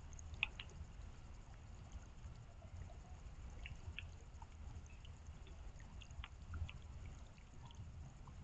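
Faint, irregular drips and ticks of rainwater falling on surfaces, over a low steady rumble.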